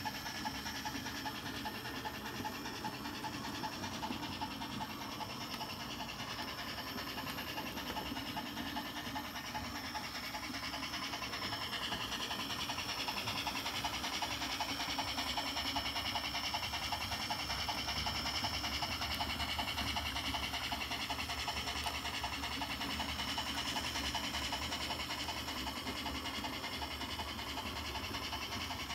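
O scale brass Garratt model steam locomotive running along the layout track, its drive and wheels making a steady, rapidly repeating running noise. It grows somewhat louder about a third of the way in, with a higher whine that bends in pitch.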